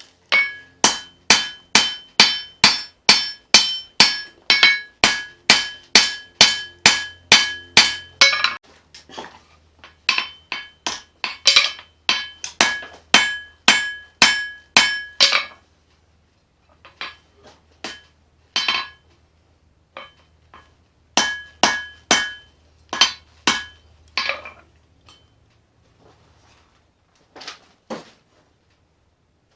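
Hammer blows on leaf-spring steel being forged into a knife blade, each strike ringing. A fast, even run of about three blows a second goes for the first half, then the blows come in shorter, scattered groups with pauses.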